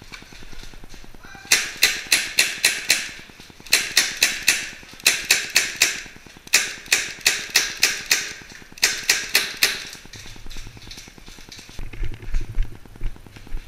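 Airsoft gunfire: several quick strings of sharp shots, about five or six a second, with short pauses between strings. The shooting thins out after about ten seconds, leaving a few fainter knocks.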